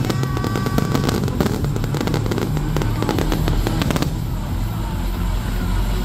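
Aerial fireworks shells bursting: a rapid run of bangs and crackles, thickest over the first four seconds and sparser after.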